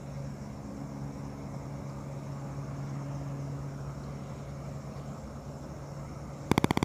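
A steady low hum with faint background noise. Near the end comes a short, rapid rattle of clicks lasting under a second.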